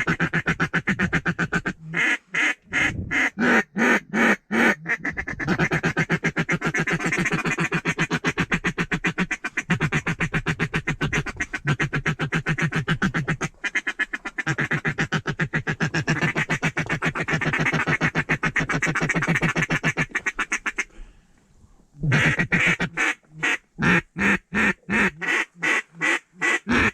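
Mallard duck call blown in long runs of rapid, evenly spaced quacks and chatter, the calling used to work a flock of mallards. There is a short break about 21 seconds in, then the calling starts again.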